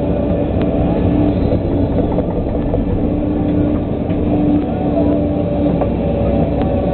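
Volvo EC140 LC excavator's diesel engine running steadily under hydraulic load, heard from inside the cab, with a steady hum as the boom swings the empty bucket back and lowers it to dig.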